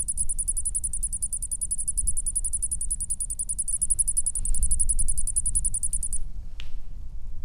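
A mole squeaking: a rapid, high-pitched chirping of about a dozen squeaks a second that stops about six seconds in. A steady low rumble runs underneath.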